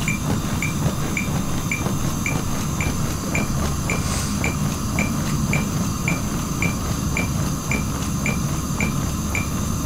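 A CPR metronome beeping steadily at about 110 beats a minute, a short high beep on each beat that sets the pace for chest compressions. Under it runs the low, rhythmic noise of compressions on a CPR training manikin.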